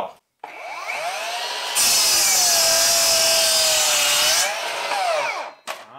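Ryobi One+ 36-volt brushless sliding miter saw spinning up with a rising whine, then crosscutting a 4x4 wooden post in about two and a half seconds, its pitch sagging a little under the load. The blade speeds up again as it clears the wood and winds down, with a knock near the end.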